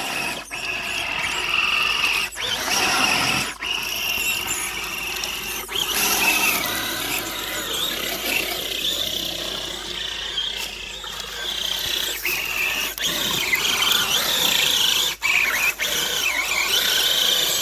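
Electric drive motor of a Traxxas TRX-4 RC crawler whining high and wavering in pitch as it strains, the truck bogged down and stuck.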